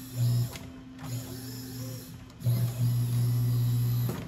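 Consew 228R post-bed roller-foot industrial sewing machine run in three stop-start bursts of steady motor hum while sewing thick leather strap, the last and loudest lasting about a second and a half. The motor's drive belt is not tight, so the machine struggles to drive through the leather.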